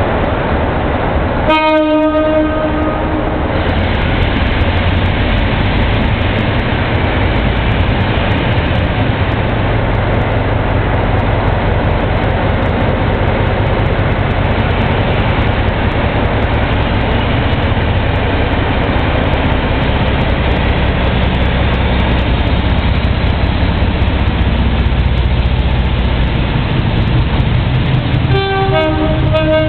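Class 47 diesel locomotive's Sulzer twelve-cylinder engine working hard as it pulls away and approaches, a loud steady thrash. Its horn sounds about two seconds in and again near the end.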